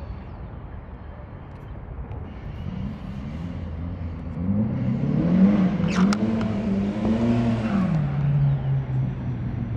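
Drift car's engine revving as the car slides through: the pitch climbs, swings up and down as the throttle is worked mid-drift, then drops to a lower steady note near the end, over a hiss of tyres on the loose surface. A couple of sharp clicks come about six seconds in.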